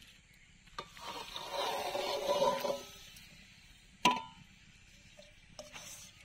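Syrupy winter melon pieces sliding and splashing out of a metal bowl into a metal karai, a wet clatter with the pan ringing for about two seconds. A single sharp metal clank follows about four seconds in.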